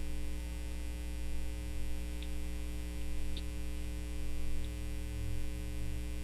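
Steady electrical mains hum, a low buzz with several higher overtones, on the microphone line, with a few faint clicks in the middle.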